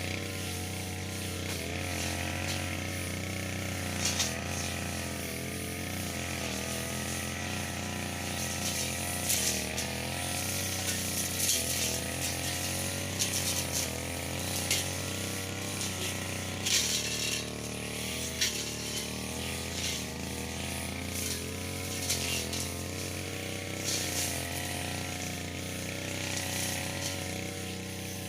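Engine-powered brush cutter running steadily at working speed, its pitch wavering as it swings, with repeated short swishing bursts as the cutting head strikes grass. About two-thirds of the way through, the engine note drops briefly.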